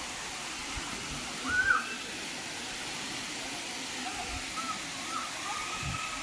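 Steady rushing hiss of falling water from a waterfall, with a few short, faint voice-like calls over it, the loudest about one and a half seconds in.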